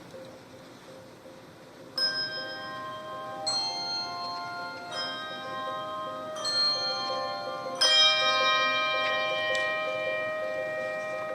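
Handbell choir playing slow chords: after about two seconds of quiet, five chords are struck roughly every one and a half seconds, each left to ring. The last chord is the loudest and fades slowly.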